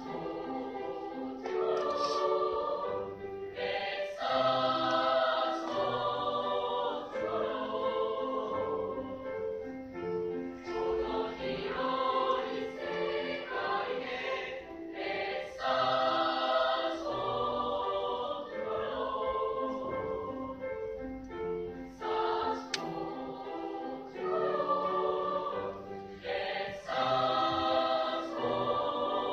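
A mixed school choir of boys and girls singing a choral piece, with notes that change every second or so.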